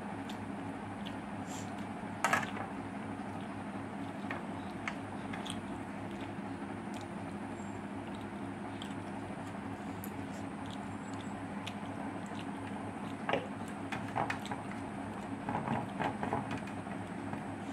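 A person eating rice and curry by hand from a steel compartment plate: chewing, with a few sharp clicks of fingers against the steel, the loudest about two seconds in and a cluster near the end. A steady low hum runs underneath.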